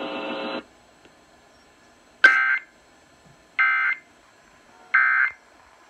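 A steady buzzing tone cuts off about half a second in. Then come three short warbling data bursts of the Emergency Alert System's End of Message code, about a second and a half apart, signalling the end of the tornado warning broadcast.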